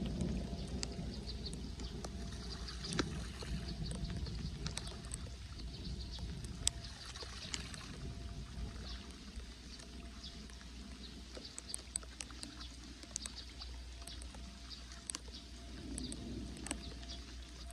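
Gloved hands sloshing and splashing in shallow floodwater while clearing debris from a clogged street drain, with scattered small clicks. The splashing is heavier at the start and again near the end. A steady low rumble runs underneath.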